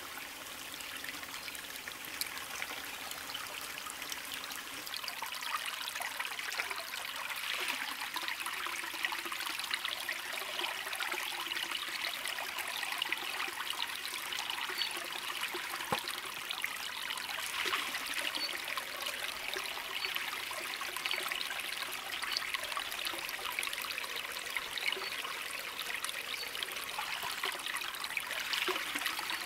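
Small shallow stream trickling steadily over rocks and moss, with water running into a bandana-covered container held in the flow.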